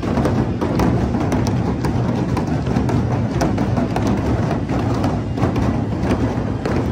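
Several large double-headed drums beaten together in continuous, dense drumming, loud and without a break.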